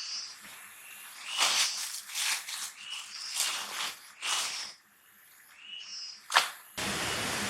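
A short pitched animal call repeats every few seconds among several loud noisy bursts. A sharp click comes near the end, followed by a steady hiss.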